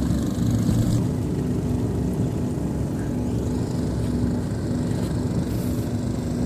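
Boat engine running steadily, a low even drone.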